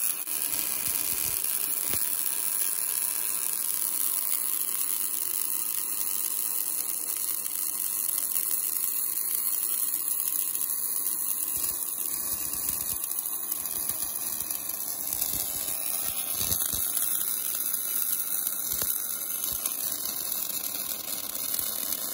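Welding arc of an automatic MIG port-welding machine running a weld of a port onto a hydraulic cylinder tube: a steady hiss with a fine crackle and buzz, throwing spatter.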